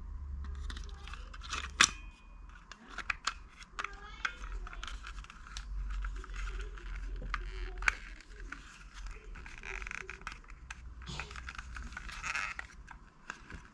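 Plastic toy-watch casing being handled and pressed together by hand: scattered sharp clicks and rustling as the top cover is fitted onto the base, over a low steady hum.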